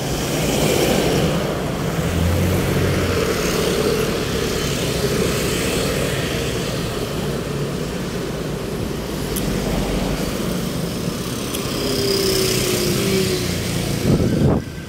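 Road traffic: motor vehicles running and passing, a steady wash of engine and tyre noise.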